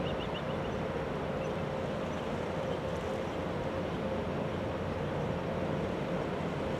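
Steady low machinery drone with a constant hum tone, unchanging throughout, with a few faint high chirps right at the start.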